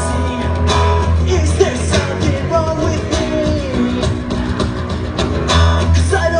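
Live rock band playing, with strummed acoustic guitar, electric guitar and singing.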